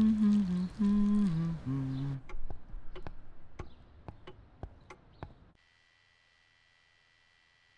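A low voice humming a stepping tune for about two seconds, then a scatter of about a dozen light, sharp clicks spread over three seconds and fading, then a faint steady high whine.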